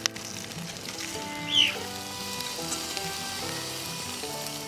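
Chitterlings sizzling in their juices inside foil packets on a charcoal grill, with a sharp click at the start. Background music with held notes plays under it, and a short falling whistle-like tone sounds about a second and a half in.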